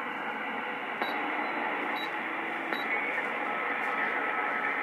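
Galaxy DX2527 radio's speaker putting out steady band static on sideband, with a faint distant station buried in the noise. Three short ticks sound about a second apart, and a steady whistle comes in over the static about three and a half seconds in.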